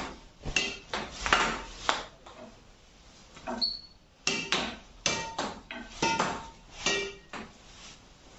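Apacs Graphite 999 badminton racket strung with Yonex BG66 Ultimax string repeatedly striking a shuttlecock against a wall: about a dozen sharp, pinging string hits in quick succession, with a pause about three seconds in.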